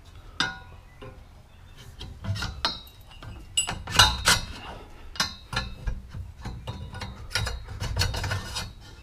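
Metal roll-cage tube sections and a connecting sleeve knocking, clinking and scraping against each other as they are fitted together by hand. The knocks are irregular, and the loudest comes about four seconds in.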